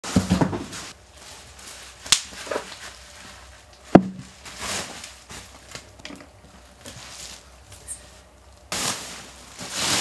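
Bubble wrap rustling and crinkling as a heavy metal battery box is handled on it, with two sharp knocks about two seconds apart and bursts of plastic rustle near the end.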